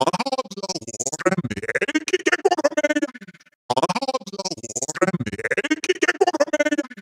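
Synthesized robotic voice stuttering, its speech-like sounds chopped into rapid repeats. It comes as two phrases of about three and a half seconds each, with a short break about halfway.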